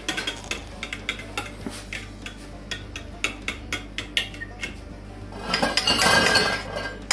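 A metal fork beating egg and milk in a glass bowl: a run of quick light clicks and clinks against the glass. It grows louder and busier for about a second near the end.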